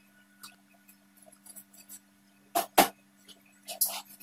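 Small metal tools and parts clicking against an opened laptop's chassis during reassembly: two sharp clicks a little past halfway through, then a softer pair near the end, over a faint steady low hum.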